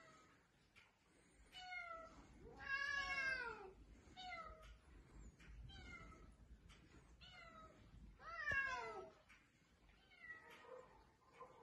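Egyptian Mau cats meowing repeatedly: about ten separate calls, most falling in pitch, with two longer, louder meows about three seconds in and again near nine seconds in.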